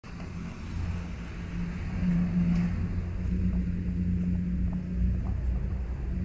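A motor vehicle's engine running: a steady low hum over a rumble, loudest about two seconds in and dropping away a little after five seconds.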